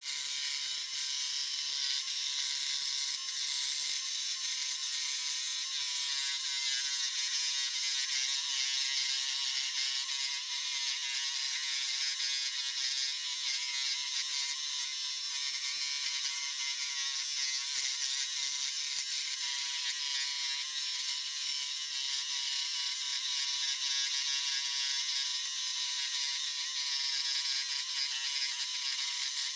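Scroll saw running steadily, its reciprocating blade cutting along a curved line in a wooden board.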